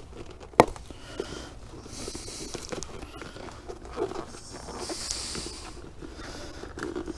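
Cardboard brake-pad box and its paper insert handled, rustling and crinkling, with a sharp click about half a second in.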